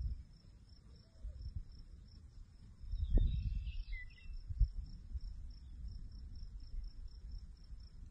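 A steady, pulsing insect trill over grassland, with gusts of wind rumbling on the microphone, the strongest gust about three seconds in. A short higher call falls in pitch around the same moment.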